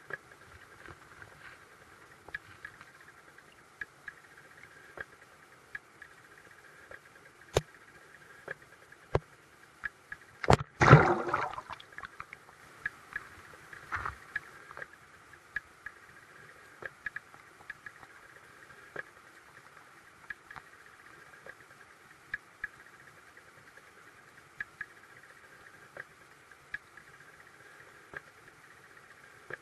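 Creek water heard from a submerged camera: a steady muffled hiss with many scattered small clicks and ticks, a few sharper knocks, and a louder clattering rustle about eleven seconds in.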